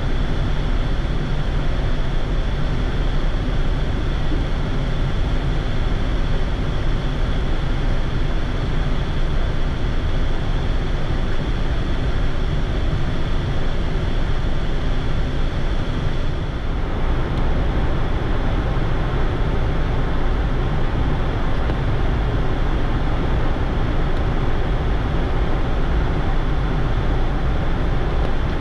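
Steady in-flight cockpit noise of a Boeing 787-8 at high altitude: an even airflow hiss with a low rumble underneath, briefly dipping about halfway through.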